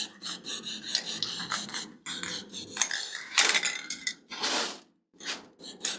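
Aerosol spray paint can being shaken, its mixing ball rattling, with a short burst of spray hissing about four seconds in.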